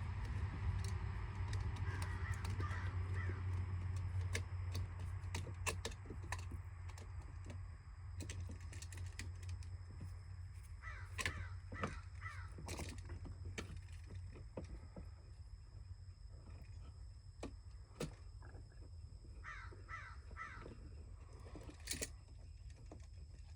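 A crow cawing in two short series of about three caws each, a few seconds apart. Scattered sharp clicks and a low steady hum run underneath.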